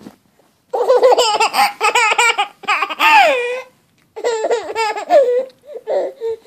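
Baby laughing hard in two long bouts, the second starting about four seconds in.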